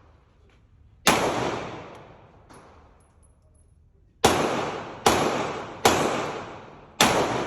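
Pistol shots, each with a long echoing decay: one about a second in, then four fired in quick succession from about four seconds in, the last near the end.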